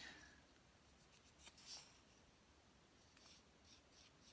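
Near silence, with faint light scrapes of a small sculpting tool spreading plastic wood filler onto a wood carving, a couple about one and a half seconds in and a few softer ones near the end.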